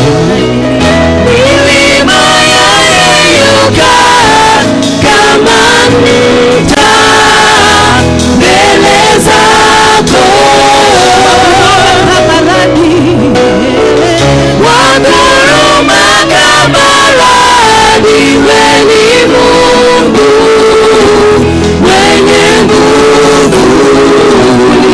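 Live gospel worship music: a band with guitar and bass playing steadily, with singing.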